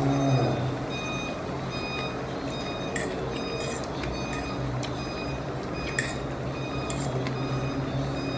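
A metal fork clinking and scraping on a ceramic plate while noodles are eaten: scattered sharp clicks, each with a brief high ring, over a steady low hum.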